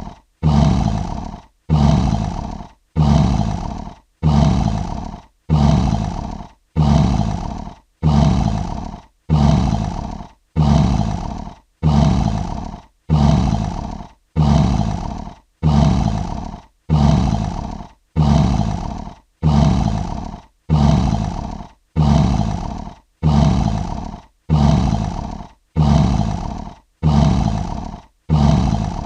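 Lion roar sound effect: the same short roar repeated about once a second, each one starting loud and fading out, with a brief silent gap before the next.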